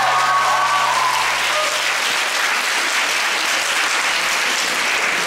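Audience applauding, with the last held notes of the music dying away in the first two seconds.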